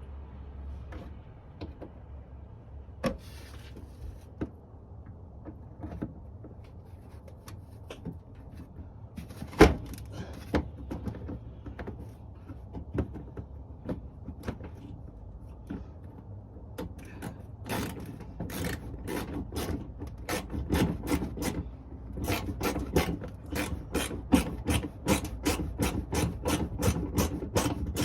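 Scattered clinks and knocks of tools on car parts, then from about halfway a socket ratchet clicking steadily, about three clicks a second, as a bolt is turned out.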